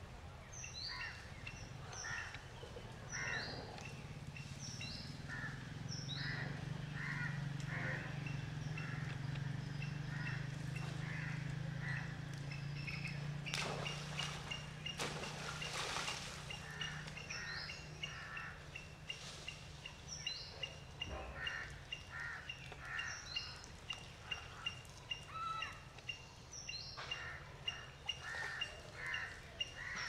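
Several birds calling over and over in woodland, quick down-slurred notes and chirps about once a second, with a fast ticking call running under them. A low steady hum swells through the first half and fades out past the middle, and a couple of short louder noises come about halfway through.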